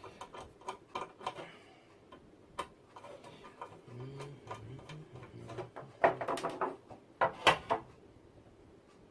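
Small clicks and light clatter of a screw and small computer-mounting parts being handled, with louder clusters of clicks about six and seven and a half seconds in.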